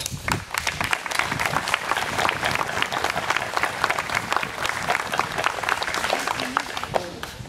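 An audience applauding with steady clapping that thins out and stops near the end.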